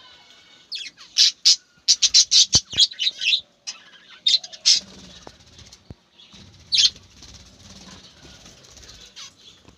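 Birds chirping: a quick run of short, high calls about a second in, then a few scattered calls.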